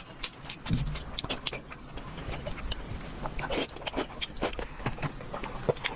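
Eating sounds: chewing and mouth smacks, a run of irregular short clicks.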